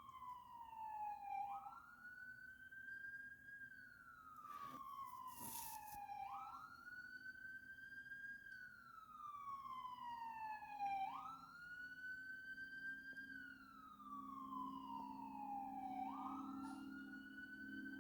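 Emergency vehicle siren in a slow wail: each cycle sweeps quickly up, then falls slowly, repeating about every five seconds. A short hissing burst comes about five seconds in, and a low steady hum builds from about eleven seconds.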